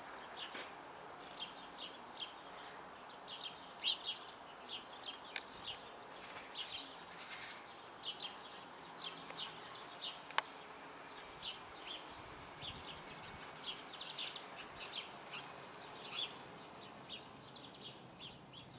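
Small birds chirping, short high chirps repeating irregularly over a steady background hiss. Two sharp clicks stand out, about five and ten seconds in.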